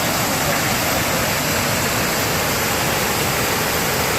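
Heavy-rain floodwater pouring over the collapsed section of road like a waterfall: a steady, loud rush of falling water.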